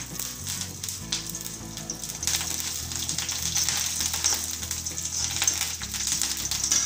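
Curry leaves and tempering seeds sizzling and spattering in hot oil in an iron kadai, while a steel ladle stirs and scrapes them. The sizzle grows louder about two seconds in, with scattered sharp pops.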